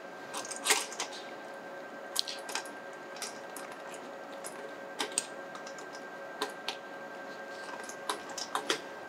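Scattered light clicks and taps of metal parts being handled as the shield cap of a probe station is set over its opening, the sharpest about a second in. Under them runs a faint steady hum with two tones.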